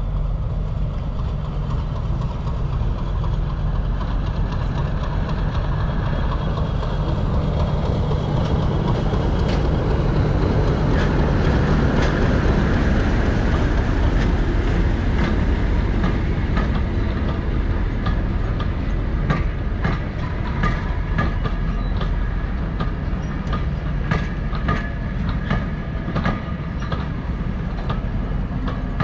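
Diesel-hauled train on the move: a steady low engine drone, loudest about twelve seconds in, then, through the second half, a run of sharp wheel clicks over the rail joints with faint ringing from the wheels on the rails.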